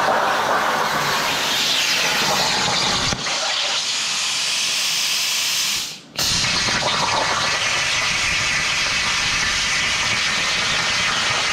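CNC plasma table's torch cutting steel plate: a loud, steady hiss of the plasma arc. It breaks off briefly about six seconds in, then carries on.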